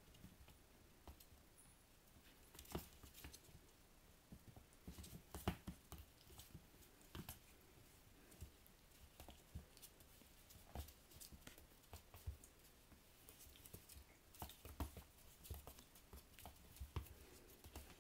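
Faint, irregular taps and scuffles of Japanese Spitz puppies' paws and claws on a wooden floor as they play and wrestle.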